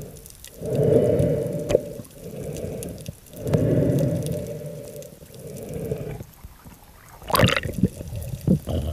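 Water rushing and churning around a submerged camera, in low swells lasting about a second with short quieter gaps between them. A sharp splashing burst comes about seven seconds in.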